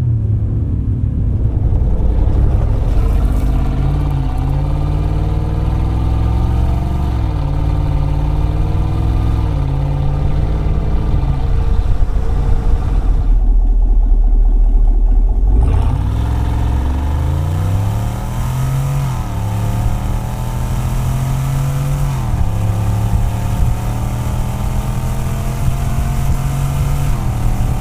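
Chevy Silverado / GMC Sierra 1500 5.3L V8 through a CORSA 3.0-inch cat-back exhaust at Sport sound level, accelerating through the gears. The engine note climbs and drops back at each upshift. Heard first from inside the cab, then from about 13 seconds in close to the exhaust tip, where a deep low rumble dominates before the revs climb again.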